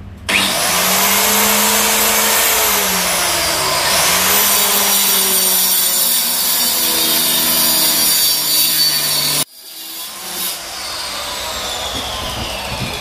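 Dekton DK115 1500 W mini tile-and-wood cutter starts up with a high whine. Its motor pitch sags and then recovers as the carbide-toothed blade makes an angled cut through a wooden plank. About nine and a half seconds in the switch is released, the sound drops abruptly, and the motor winds down with a falling whine.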